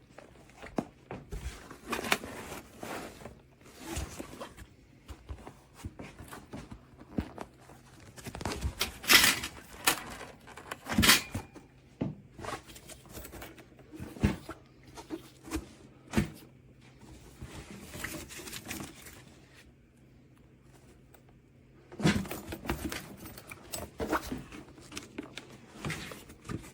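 Handling noises from a soft mesh bird-carrier backpack: irregular knocks, clicks and rustles, with two sharp cracks about nine and eleven seconds in and a quieter lull shortly before the end.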